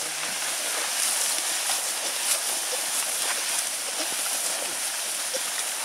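Steady rustling and swishing of dry oat stalks as a loaded plastic sled is dragged through the field, with footsteps crunching through the stalks.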